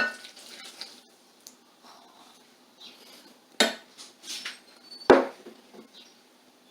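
Kitchen clatter of a bowl and utensils clinking and knocking: three sharp knocks, at the start, about three and a half seconds in and about five seconds in, with lighter clinks between.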